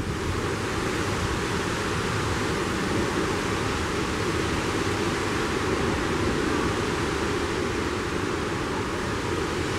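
Hurricane wind blowing steadily: a continuous rushing noise through the trees and across the microphone.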